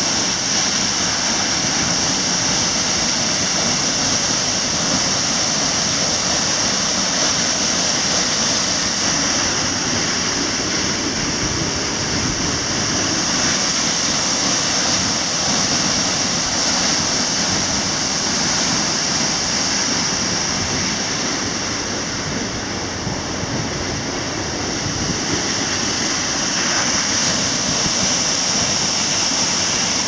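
A tall waterfall pouring down a cliff into its plunge pool: a loud, steady rush of falling water heard close to the base of the falls.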